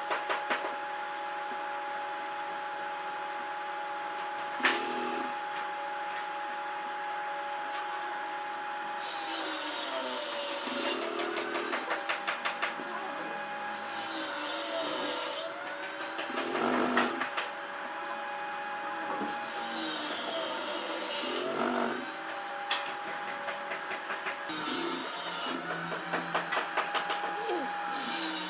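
Power tool working wood: its motor hum dips in pitch and recovers several times as it is loaded, with stretches of rapid rattling and rasping.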